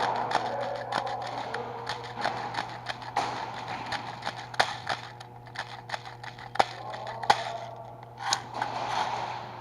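Airsoft guns firing: scattered, irregular sharp pops and clicks of BB shots, with a few louder shots in the second half.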